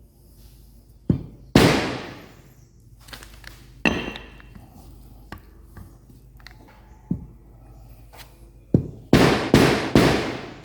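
Rubber mallet striking a socket used as a driver to tap a crankshaft oil seal into an engine crankcase: spaced single blows, then three quick blows near the end, with lighter taps between. Each blow rings briefly and fades.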